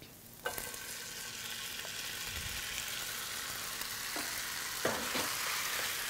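Hot canola oil with diced serrano pepper and garlic sizzling in a stainless sauté pan as drained, rinsed canned black beans are tipped in; the sizzle jumps up about half a second in and then holds steady. A few light knocks against the pan come near the end.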